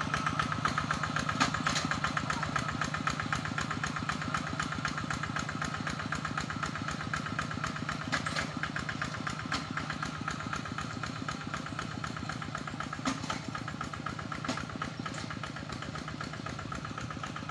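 Two-wheel hand tractor's engine running steadily under load while tilling a flooded rice paddy, with a fast, even chug and a few brief knocks along the way.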